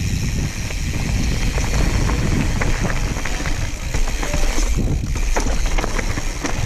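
Mountain bike being ridden along a rough trail: a steady low rumble of wind on the microphone and tyres rolling over the ground, with many small rattling clicks from the bike.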